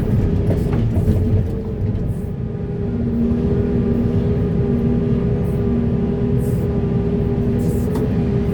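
Heavy diesel earthmoving machinery running: a steady low engine drone with a constant tone over it, a few knocks early on, and a second steady tone joining about three seconds in as the load changes.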